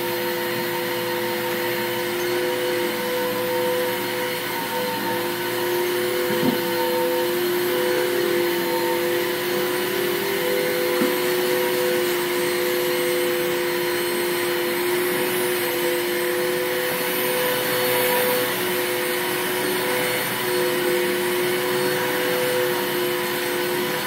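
Upright vacuum cleaner running steadily while it is pushed over carpet: a constant motor hum with two steady tones under a broad whoosh.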